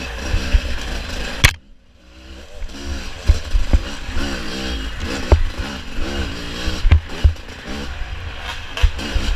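Off-road dirt bike engine revving up and down again and again as the throttle is worked, with low thumps and knocks. About a second and a half in comes a sharp knock, then the engine drops away briefly before climbing again.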